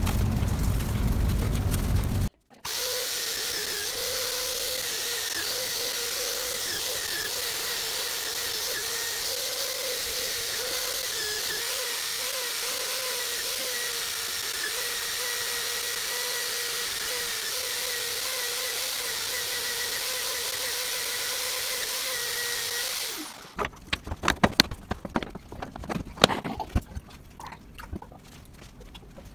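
Electric motor spinning a buffing wheel runs steadily for about twenty seconds with a steady whine while a steel knife blade is polished against the wheel, then stops abruptly. Before it there is a short burst of rubbing, and after it a run of sharp clicks and knocks.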